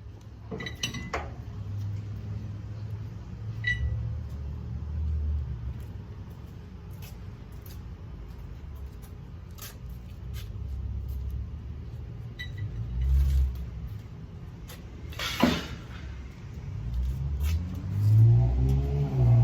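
A low, uneven engine rumble, with scattered clicks and clinks of metal. About two-thirds through comes a short, loud falling screech, and near the end the running sound rises in pitch and gets louder.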